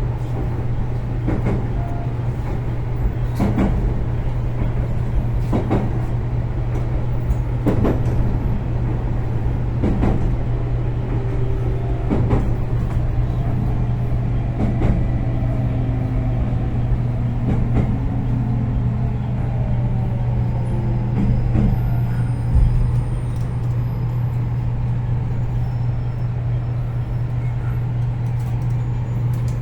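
JR Kyushu 813 series electric train braking into a station, heard from inside: wheels click over rail joints at steadily widening intervals, and the electric motor's whine falls in pitch. A thump about 22 seconds in marks the halt, and the steady hum carries on.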